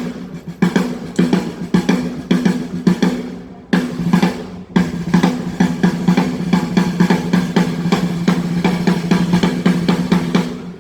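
Drum kit being played in fast runs of strokes and rolls, with a short break a few seconds in.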